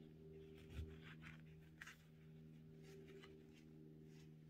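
Near silence: faint rustling of yarn being pulled through a crocheted piece by hand, over a steady low hum.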